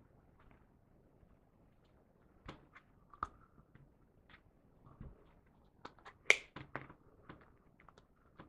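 Scattered light clicks and taps of plastic Play-Doh molds and pieces being handled, the sharpest click a little past the middle with a few quick taps right after it.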